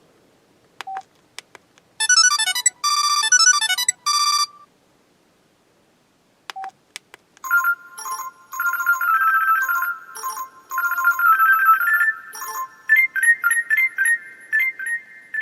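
Samsung Convoy 4 phone ringtones playing through the phone's small speaker: a short electronic melody about two seconds in, then after a pause another, longer melody of quick high notes. Short single beeps and faint clicks come between them.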